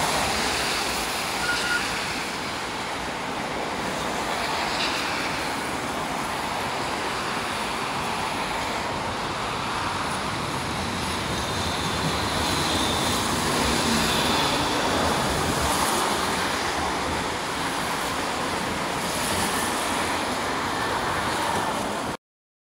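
City street traffic noise while a modern low-floor tram runs in along the tracks to the stop, with faint brief wheel squeals. It then gives way to the running noise of the tram heard from inside, and the sound cuts off abruptly near the end.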